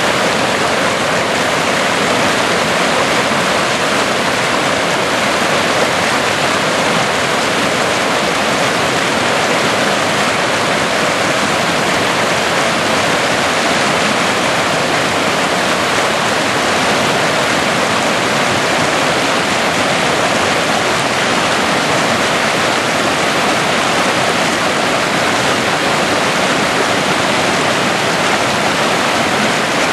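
Swift stream running high after rain, rushing over granite boulders in a steady, loud white-water roar without a break.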